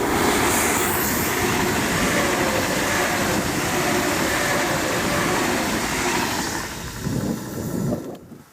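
A train passing close by at speed: a loud, steady rumble and rush of wheels on the rails that eases off in the last couple of seconds and then cuts off suddenly near the end.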